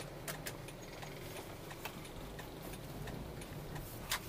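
Car turn-signal indicator ticking about twice a second, over the steady low hum of the engine and road inside the cabin.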